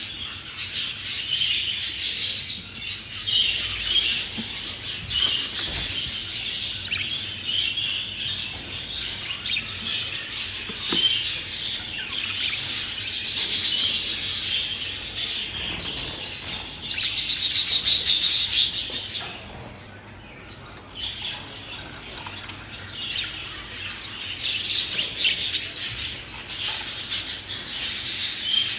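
Budgerigars chattering and chirping in a continuous busy warble, loudest for a couple of seconds about two-thirds of the way in, then briefly quieter.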